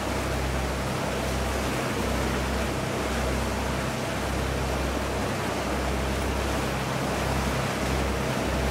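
Boat under way: a steady low engine drone, pulsing about once a second, under the rushing hiss of the churning wake and wind.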